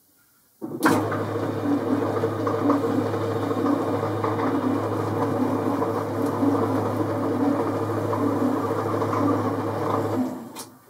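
Boxford metric lathe starting up and running at slow speed with the leadscrew engaged for a trial thread-cutting cut: a steady mechanical hum with a regular beat running through it. It starts about a second in and winds down to a stop near the end.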